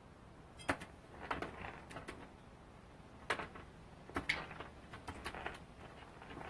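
An irregular series of sharp taps and clicks, a dozen or so spread unevenly, some in quick pairs.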